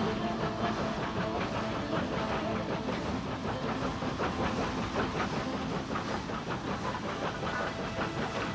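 Inside-cylinder 4-4-0 steam locomotive working hard past with its train: a steady hiss and rush of exhaust with repeated beats, over the clatter of wheels on rail.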